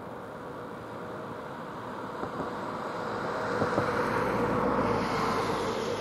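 A road vehicle passing by: a steady rush of tyre and engine noise that swells over the first few seconds, is loudest about four to five seconds in, then begins to fade.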